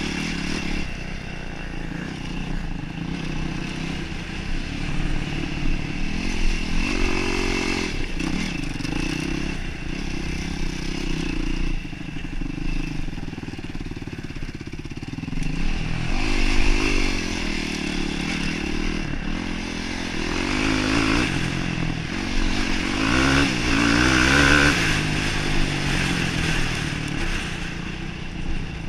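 Yamaha YFZ450R sport quad's single-cylinder four-stroke engine, heard from on board while it is ridden, the revs rising and falling again and again with the throttle, over rattling and scraping from the machine crossing rough ground.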